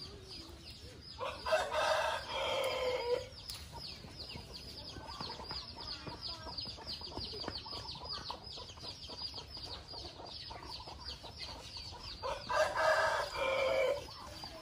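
A rooster crowing twice, once about a second in and again near the end, each crow about a second and a half long, over a steady background of fast, high chirping.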